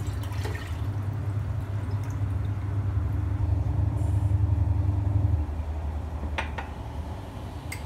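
Milk poured from a ceramic mug into a stainless-steel saucepan: a steady low pouring rumble that stops about five seconds in. A few light clicks follow near the end.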